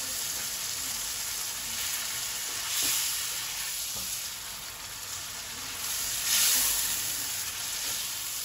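Beef pieces in a spiced onion masala sizzling and frying in oil over high heat, stirred and turned with a spatula. The sizzle is a steady hiss, swelling louder about three seconds in and again about six and a half seconds in as the meat is turned.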